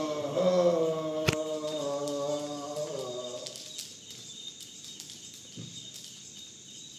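A man's voice holding one long chanted note of a mantra for about three and a half seconds, dipping slightly at the end, with a sharp click about a second in; then only low background hiss with faint ticks.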